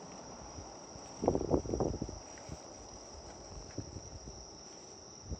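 Crickets trilling in a steady high-pitched chorus, with a short burst of rustling about a second in.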